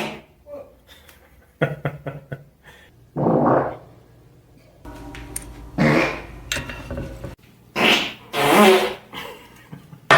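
A series of farts: about five or six separate bursts of differing length at irregular spacing, the loudest two close together near the end.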